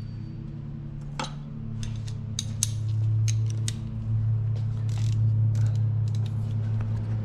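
Hand tools working on the steering rack bolts: a cluster of short, sharp metallic clicks and clinks about two to four seconds in, over a steady low hum.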